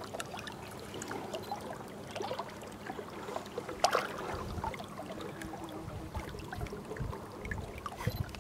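Shallow river water trickling and lapping, with small scattered splashes and one sharper tick about four seconds in.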